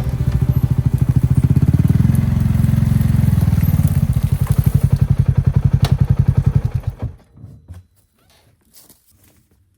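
A motor vehicle's engine idles with a low, even chug, then is switched off about seven seconds in and runs down to silence, leaving a few faint knocks.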